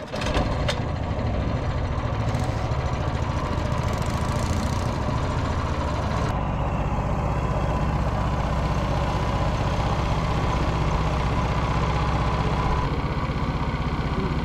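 An engine running steadily at an even speed, with a few light clicks in the first second.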